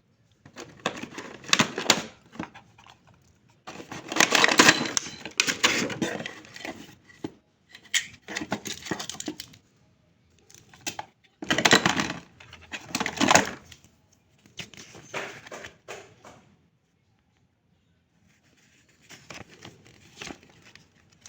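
Unboxing packaging being handled: irregular bursts of rustling and crinkling, with a quiet pause of about two seconds near the end.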